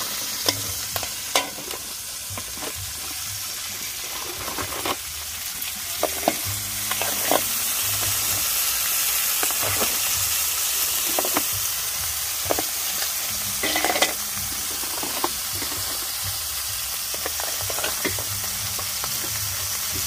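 Mud crabs frying with a steady sizzle in hot oil as they are stirred, with frequent scrapes and knocks of the utensil against the pan, the loudest about 14 seconds in.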